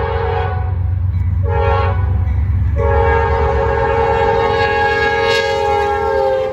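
Diesel locomotive's air horn sounding the end of a grade-crossing signal: a long blast that ends about half a second in, a short blast at about a second and a half, then a long blast from about three seconds, over the steady low rumble of the locomotive's engine.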